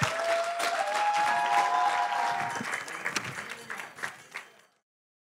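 Wedding reception guests applauding, with cheers over the clapping, dying away quickly about four and a half seconds in.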